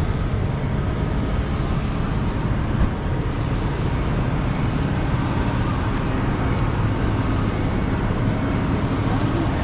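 Steady city street traffic noise: a continuous rumble of vehicles on the roadway.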